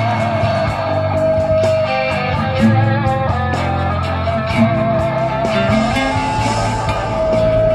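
Electric guitar playing a sustained melodic lead over a rock backing with bass.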